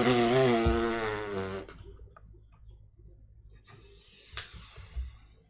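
A man's long, drawn-out laughing howl that wavers and fades out about two seconds in. Then it goes quiet apart from a sharp knock about four seconds in.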